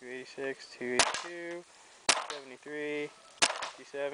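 Vanguard Creed electropneumatic paintball marker firing single shots: three sharp pops, roughly a second apart.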